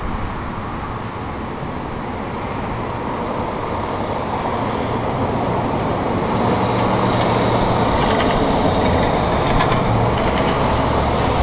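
Road traffic noise: a steady rush of passing vehicles that grows louder about halfway through, with no siren tone sounding.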